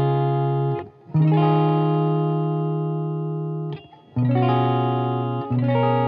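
Capoed electric guitar in DAEAC#E tuning playing a slow sequence of ringing chords, such as Dbadd9 and Fm7/Eb: the first chord rings out, then new chords are struck about a second in, about four seconds in and near the end, each left to sustain.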